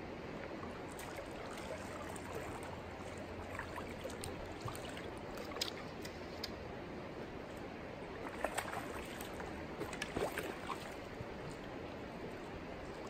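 Creek water running steadily over a shallow riffle, with a few brief splashes and clicks in the second half.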